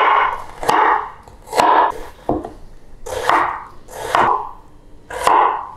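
Chef's knife chopping a red onion on a wooden cutting board: about seven separate strokes, a knock of the blade through the onion onto the board roughly once a second.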